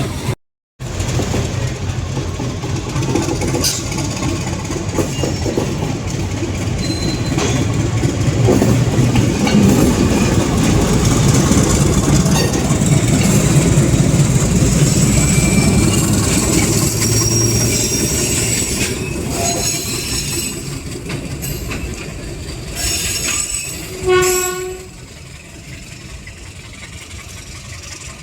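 A train passing close by: a rumble and clatter of wheels on the rails that builds to a peak mid-way, with brief high-pitched wheel squeals. Near the end comes one short horn blast, the loudest moment, after which the train noise drops away.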